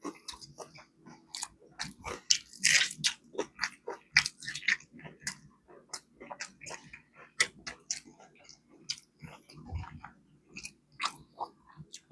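Biting and chewing of crispy fried chicken wings: an irregular run of crunches and short clicks, a few louder bites about three seconds in.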